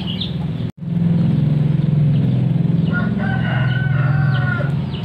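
A rooster crows once, starting about three seconds in and lasting nearly two seconds, over a steady low drone. The sound drops out briefly just under a second in.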